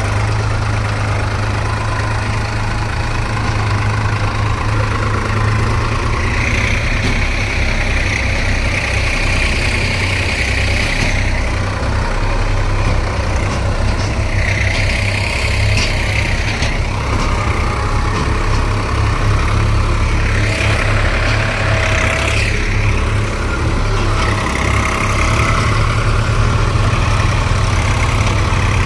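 JCB 3DX backhoe loader's diesel engine running steadily, with a higher whine that comes and goes several times for a few seconds each.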